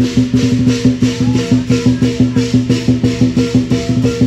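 Chinese dragon dance music: a fast, even beat of clashing percussion over a steady low drone.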